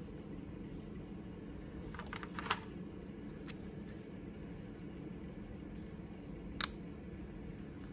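Light clicks and handling noises as a smartwatch band, magnetic charging puck and plastic packaging tray are handled, over a steady low hum. A few small clicks come about two seconds in, and one sharper click about six and a half seconds in.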